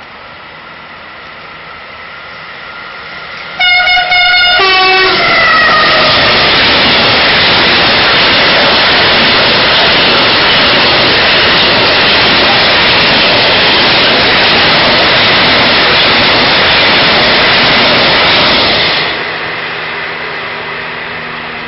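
Train approaching and sounding two short horn blasts about four seconds in, the second lower in pitch. It then passes close by with a loud, steady rush and rumble of wheels on rail for about fourteen seconds, and the sound drops away sharply as the last cars go by.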